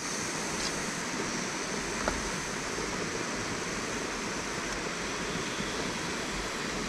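River water flowing and rushing steadily, with one small click about two seconds in.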